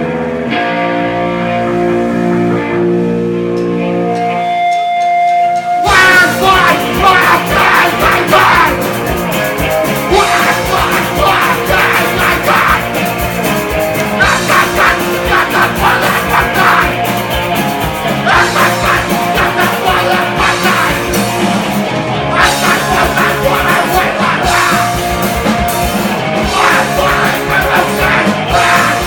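Punk rock band playing live, with singing. The first few seconds are sustained, held notes; about six seconds in, the full band comes in loud.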